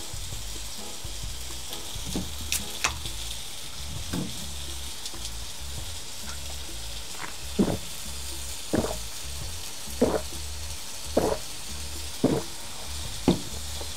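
Steady sizzle of bacon and bulgogi grilling on a barbecue grill. From about halfway in come six gulps, roughly one a second, as a drink is swallowed from a can.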